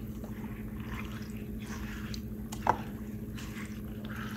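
Soaked glutinous rice being mixed with coconut milk and sugar in a glass baking dish, with a silicone spatula and by hand: soft, wet squishing and scraping. There is one sharp click about two and a half seconds in, over a steady low hum.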